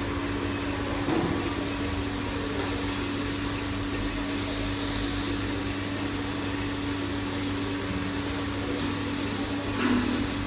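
Induction melting furnace running: a steady machine hum with fan-like noise and a constant tone underneath. A short louder sound comes near the end.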